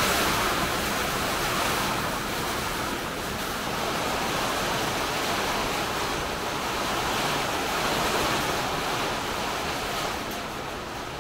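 Steady rain falling, an even hiss that swells and eases a little.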